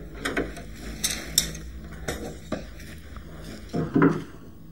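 Hand tools being handled on a wooden door edge: a series of sharp clicks and taps, then a louder knock about four seconds in as a try square is set against the wood.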